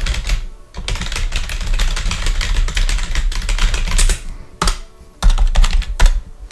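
Close-miked handling sounds: dense crackly rustling and scratching with a low rumble, in two spells separated by a short pause about four seconds in.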